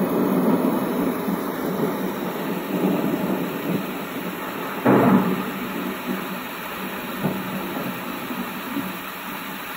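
Recorded thunderstorm sounds playing from a Google Home smart speaker: steady rain with a sudden clap of thunder about five seconds in and a smaller rumble a couple of seconds later, growing quieter toward the end.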